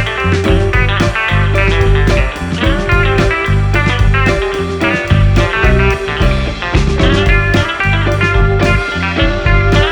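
Background music: a guitar-led rock track with a steady beat and heavy bass.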